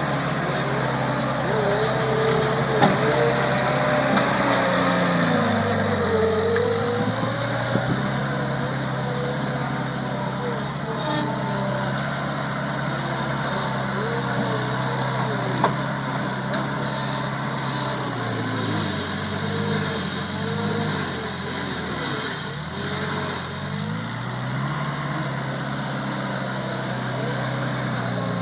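Bobcat 743 skid steer loader's engine running steadily. Its pitch sags and recovers as it takes load, about five seconds in and again for several seconds past the middle.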